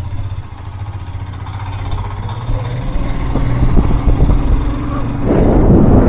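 Motorcycle engine running at low speed in slow traffic, getting steadily louder, with wind buffeting the microphone from about five seconds in.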